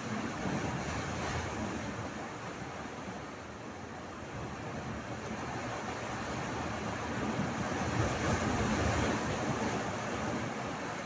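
Sea surf surging and breaking through a narrow rocky channel, a continuous rush of churning water that swells to its loudest about eight seconds in.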